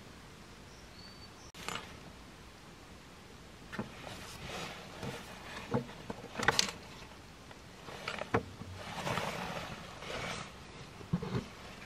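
Footsteps crunching and scuffing on a forest trail, about ten uneven steps.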